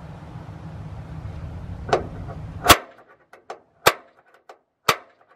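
A hand punch pressed through a paper template onto the steel truck bed, marking hole centres: a series of sharp clicks, roughly one a second. A steady low hum underneath cuts off suddenly at the loudest click, nearly three seconds in.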